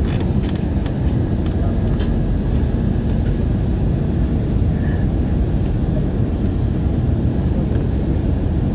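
Steady low roar of airflow and the GE CF34 turbofan engines, heard inside the cabin of an Embraer 190 airliner on descent, with a few faint ticks.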